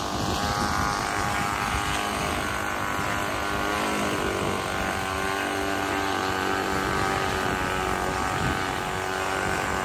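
Radio-controlled model airplane's small engine and propeller running at a steady speed, a constant drone, with wind buffeting the microphone.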